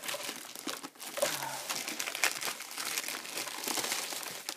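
Clear plastic bag crinkling as it is pulled off a subwoofer by hand: a dense run of small crackles.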